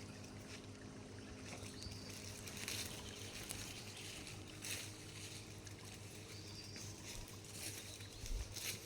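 Faint outdoor ambience at dusk: a steady low hum under a soft noise haze, with a few brief swells of rustle.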